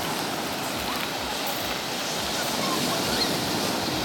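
Sea surf washing on the shore: a steady rushing noise.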